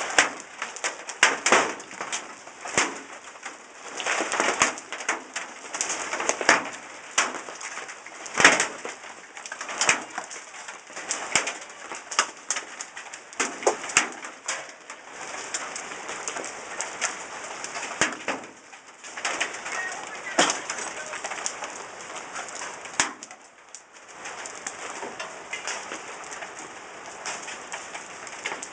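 Ping-pong-ball-sized hailstones striking hard surfaces in rapid, irregular sharp cracks over a steady hiss of rain. The strikes thin out toward the end as the storm eases.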